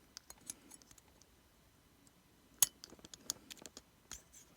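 Faint, scattered small clicks and taps of hand tools and parts as an iPhone 5c's logic board is worked loose from its case, with one sharper click about two and a half seconds in.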